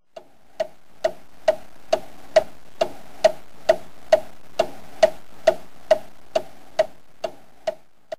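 A clock ticking steadily, about two sharp ticks a second, with a faint background bed fading away toward the end.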